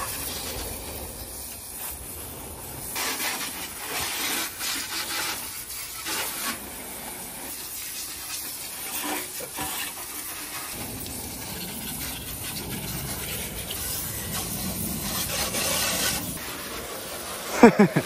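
Garden hose spray nozzle rinsing soap off a truck's painted body: water spraying and splashing on the metal panels, a steady hiss that grows louder in stretches. Near the end comes a short, loud falling tone.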